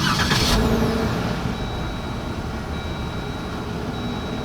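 Jeep Wrangler running in reverse: a steady engine and vehicle noise, with a brief burst of noise at the start and a faint high steady tone from about a second and a half in.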